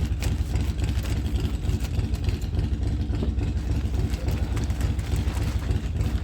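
A neighbour's old vehicle engine idling, a steady low rumble, which the speaker calls a "rattle trap".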